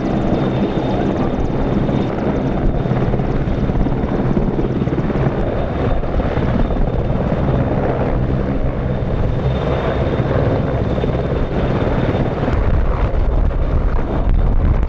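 Royal Navy Merlin (AW101) helicopter hovering close by: the three-engine turboshaft whine and main-rotor noise run loud and steady, with a thin high whine on top, the low rumble growing heavier in the last few seconds.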